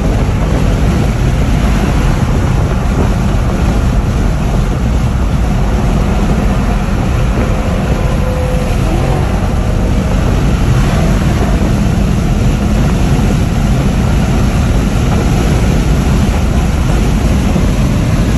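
Car driving at highway speed: a loud, steady rumble of road and wind noise.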